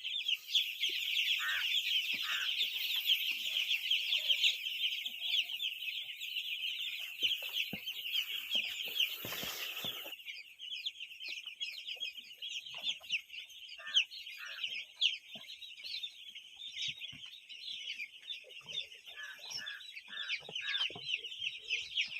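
A large crowd of poultry chicks peeping continuously, a dense high-pitched chorus of many rapid overlapping cheeps. A few lower, longer calls stand out here and there, and a short rustling burst of noise comes about nine seconds in.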